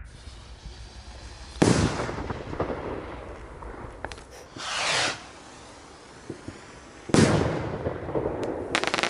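Blackboxx Goldjungs 48 mm premium rockets bursting in the sky: a sharp bang about a second and a half in, a brief whoosh around five seconds, then a second bang about seven seconds in. A rapid crackle comes near the end.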